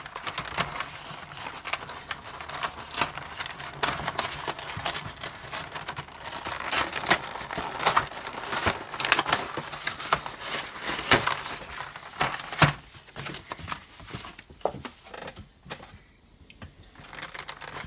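Packaging crinkling and crackling as it is handled and pulled off a model kit part: a dense run of irregular rustling and clicks for about twelve seconds, then only scattered, quieter crackles.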